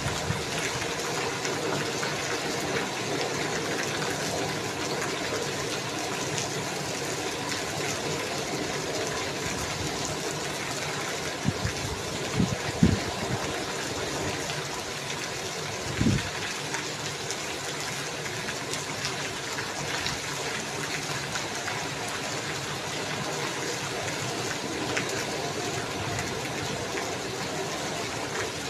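Steady rain falling, an even hiss of water with many small ticks. A few dull low thumps stand out about twelve and sixteen seconds in.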